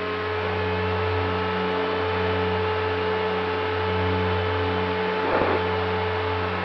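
Brushless electric motor and propeller of an RC plane running at steady throttle, a constant whine over rushing air. There is a short thump about five seconds in.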